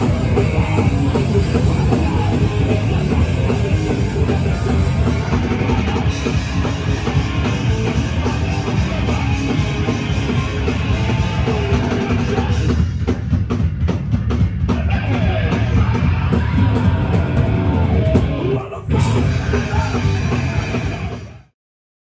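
Hardcore punk band playing live and loud, with distorted electric guitars and a drum kit. The music breaks off for a moment about three-quarters through, then cuts off abruptly near the end.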